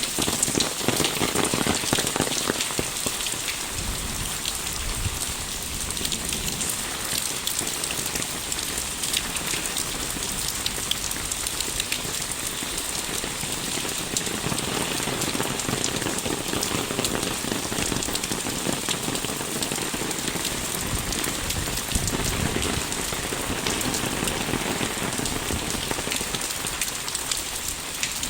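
Steady rain, heard as an even hiss with a dense patter of individual drops.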